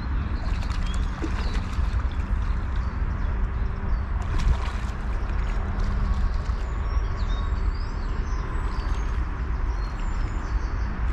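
Open-air lakeside ambience: steady wind rumble on the microphone with faint bird chirps above it.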